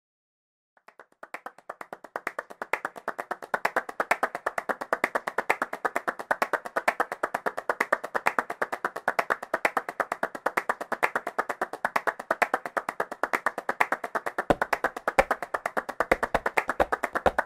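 Flamenco palmas: two people clapping a fast, even rhythm, starting about a second in and swelling to full strength over the next couple of seconds. Near the end, low cajón bass strokes join the clapping.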